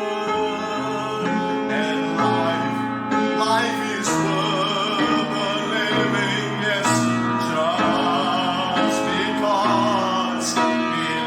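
Church worship band playing a slow instrumental passage with long held chords that change every second or two, and a wavering melody line above them.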